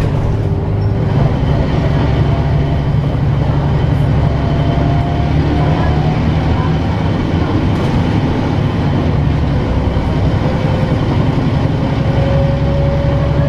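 Articulated city bus's diesel engine and drivetrain heard from inside the passenger cabin while under way: a steady low engine drone with a faint whine that rises slowly in pitch, most clearly near the end.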